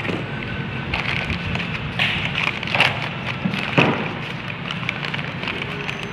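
Paper crinkling and rustling in several short bursts as a folded sheet is unfolded and smoothed by hand, over a steady low hum.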